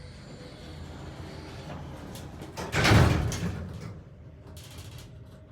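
Schindler elevator with a steady low hum, then its sliding doors opening with a loud rush about three seconds in, followed by a few faint clicks.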